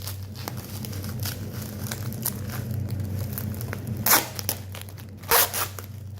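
Shipping packaging being handled and unwrapped: a run of crinkling with two louder rips, about four seconds and five and a half seconds in, over a steady low hum.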